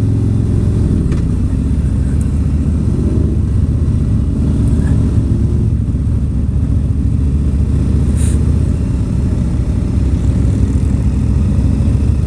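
Harley-Davidson Street Glide Special's Milwaukee-Eight V-twin engine running steadily at low road speed, heard from the rider's seat.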